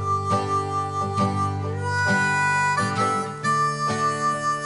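Background music: a harmonica melody over guitar accompaniment.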